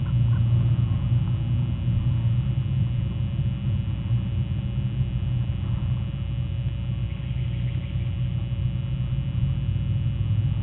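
Steady low rumble with faint constant hum tones above it, and no distinct bird calls.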